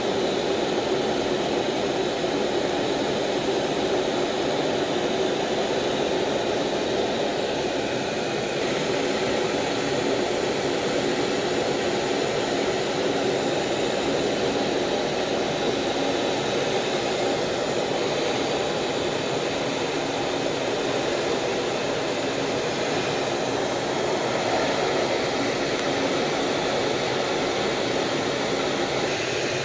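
Steady jet noise heard inside an F/A-18F Super Hornet's cockpit in flight: its twin GE F414 turbofans and the airflow over the canopy, making an even rushing drone with no breaks.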